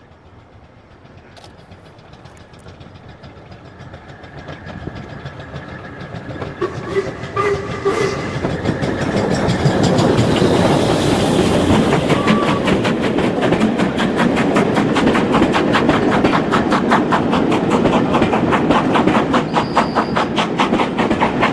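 A steam train, an LMS Black Five locomotive hauling coaches, approaching and passing close by: it grows louder for several seconds, the engine goes past about ten seconds in, then the coaches follow with a rapid, steady clickety-clack of wheels over the rail joints.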